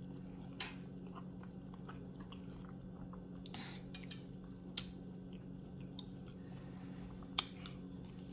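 A person chewing food close to the microphone, with scattered small wet mouth clicks and two sharper clicks near the end, over a steady low hum.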